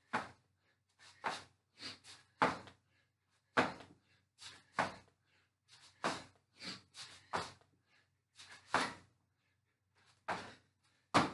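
A man doing hand-release push-ups: a quick, uneven series of short, sharp puffs of breath and thuds from his body and hands on the floor, one or two a second.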